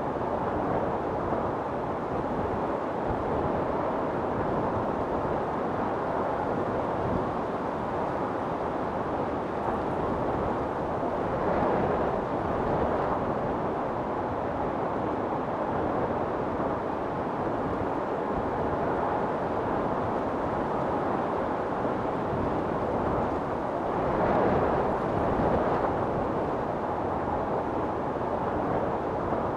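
Wind storm blowing steadily, with gusts swelling about twelve seconds in and again near twenty-five seconds.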